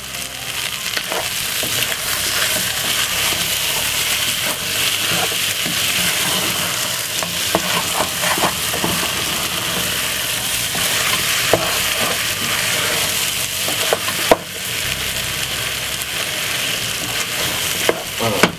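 Seasoned chicken pieces sizzling steadily in a hot pot while a wooden spoon stirs them, with a few sharp knocks of the spoon against the pot.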